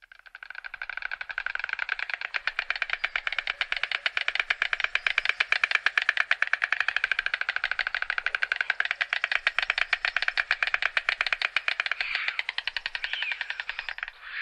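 White stork bill-clattering: a long, rapid rattle of clicks as the mandibles snap together. It builds up over the first couple of seconds and trails off near the end.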